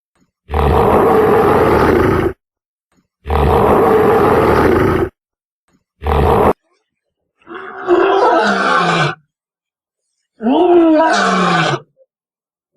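Wild animal calls played one after another with silence between them: three rough roars, the first two about two seconds long and the third short, then two shorter calls that fall in pitch.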